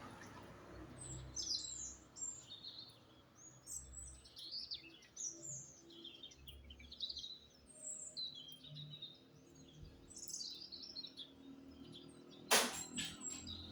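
Songbirds chirping and twittering, many short high calls coming one after another. A single sharp click sounds near the end, louder than the birds.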